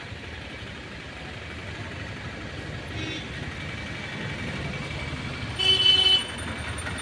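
Street traffic running steadily, with a vehicle horn sounding: a short, faint honk about three seconds in and a loud half-second honk near the end.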